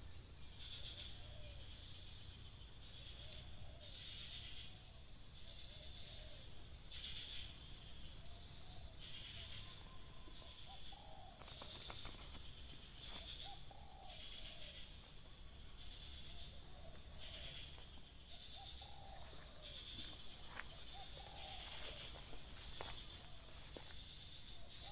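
Spotted dove giving short, soft, low calls in small groups every few seconds, the 'ngeruk' call of a decoy dove. Insects buzz behind it in high pulses about every second and a half over a steady high whine.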